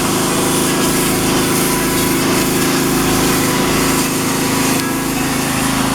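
Pressure washer running steadily: an even motor hum under a constant hiss of spray.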